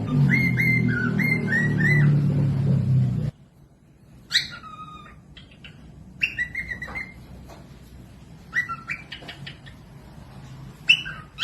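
Cockatiels whistling and chirping. The first three seconds are louder, with a run of quick repeated whistled notes over a low hum that cuts off suddenly. After that come scattered short whistles and chirps.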